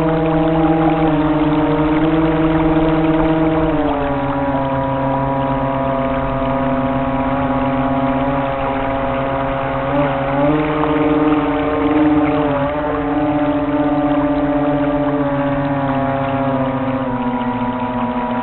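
Electric drive motor of a Graupner Bremen 9 RC model boat running under way, heard close-up from on board: a steady whine that drops in pitch about four seconds in and shifts up and down briefly twice later, following the throttle.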